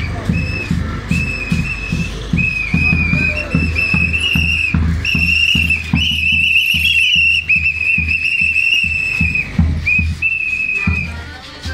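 A whistle blown in long, high blasts with short breaks, the longest one about halfway through, over a rhythmic low thumping.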